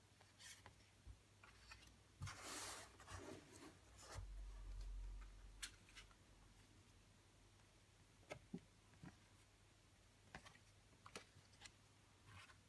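Faint rustling and light taps of stiff photo cards being shuffled and set down on a wooden table, with a short rustle about two seconds in, a brief low rumble around four seconds, and a few small clicks after.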